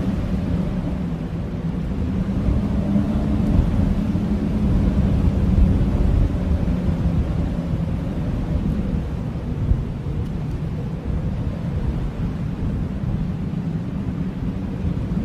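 Blizzard wind blowing steadily as a deep rush, with a faint held howling tone and small swells in strength.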